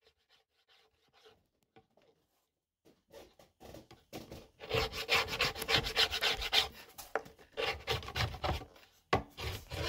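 Plastic wax scraper pulled in quick repeated strokes along a snowboard base, scraping off hardened wax. The strokes are faint at first and grow loud about halfway through.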